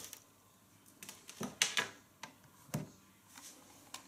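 Handling noise of a portable cassette player and its headphone cable being moved about and picked up off a tabletop: a string of light knocks, clicks and rustles, the loudest a little past one and a half seconds in.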